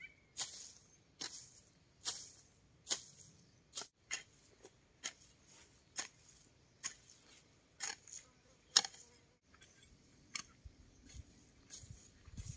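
A metal garden hoe chopping into hard, compacted soil, with a sharp scraping strike a little more than once a second. In the last few seconds the strokes become fainter and uneven.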